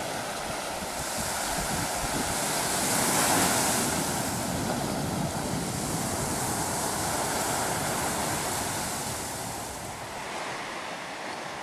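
Sea surf breaking over rocks and washing up a sandy shore, a steady rush that swells and eases, softer near the end.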